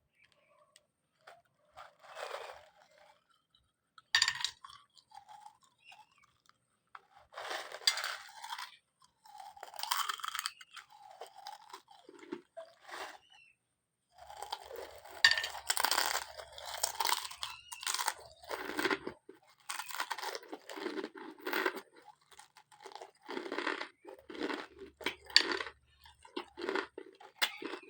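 Corn chips being crunched and chewed with loud, wet mouth noises in irregular bouts, sparse at first and nearly continuous in the second half.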